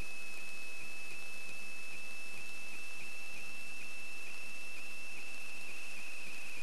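A steady high-pitched electronic whine over a faint hiss, holding one pitch and dipping slightly about two or three times a second.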